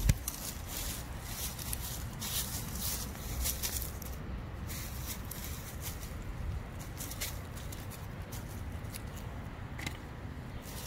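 Metal hand trowel digging into soil under dry leaf mulch: a sharp stab right at the start, then irregular scraping and crackling of dry leaves and clods, over a steady low rumble of wind on the microphone.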